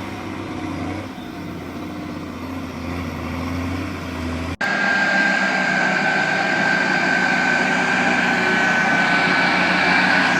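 Heavy vehicle engine running steadily with a low hum. About halfway through, an abrupt cut switches to a louder engine sound with a steady high-pitched whine.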